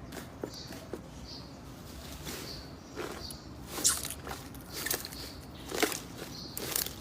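Slime being squeezed and poked by hand: irregular sticky crackles and pops, with a few louder pops about once a second in the second half.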